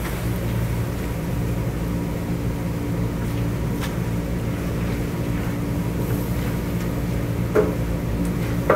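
Steady low hum of commercial kitchen equipment under a large steel pot of pork being stir-fried with a wooden paddle. The paddle knocks against the pot twice near the end.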